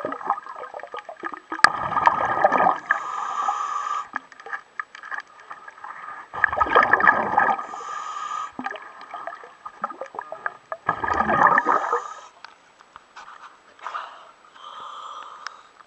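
Water sloshing and gurgling close to the microphone at a boat hull's waterline, coming in three surges of about a second each, with faint ticks and drips between them.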